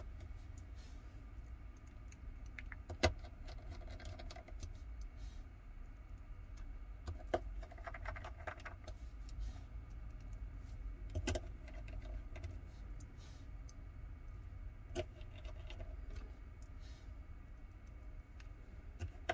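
Precision screwdriver driving tiny screws back into a Samsung Galaxy S23 Ultra's frame to fasten the loudspeaker module: faint scattered clicks and light metallic ticks every few seconds, over a low steady hum.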